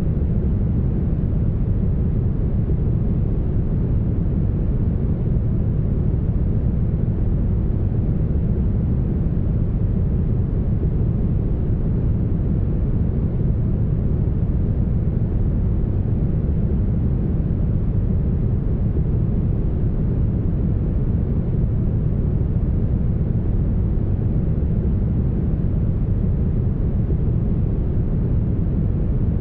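Heavily smoothed brown noise: an even, deep rushing hiss, strongest in the low end and fading off toward the top, holding perfectly steady.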